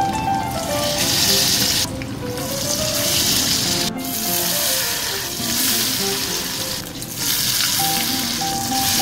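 Battered pieces of young hairtail, first a body piece and then the bones, sizzling in hot oil in a small frying pan. The hiss stops briefly a few times. Background music plays throughout.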